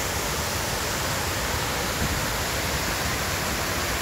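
Man-made waterfall of the 9/11 Memorial reflecting pool: water cascading down the pool's walls into the basin, a steady rushing hiss.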